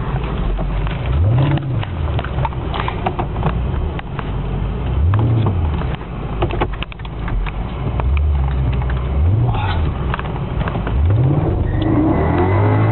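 Mercedes AMG engine heard from inside the cabin under hard driving. It revs up and drops back four times, about every three to four seconds, over steady road and wind noise with scattered clicks.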